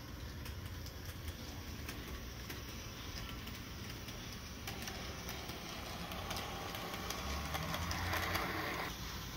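Electric model train running on its track: a steady running rumble with many small clicks from the wheels on the rails. It gets louder near the end as the cars pass close by.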